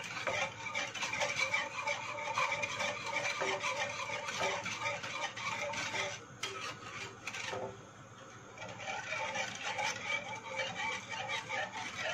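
Wire whisk scraping quickly and steadily round the bottom and sides of an enamel pot, stirring a milk, cocoa and starch chocolate sauce as it heats toward the boil, with a short lull about eight seconds in.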